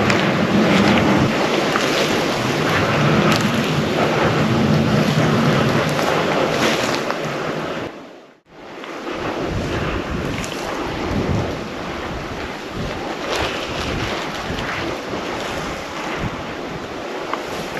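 Wind buffeting the microphone: a loud, even rush with low flutter. It cuts out abruptly for a moment about eight seconds in, then resumes.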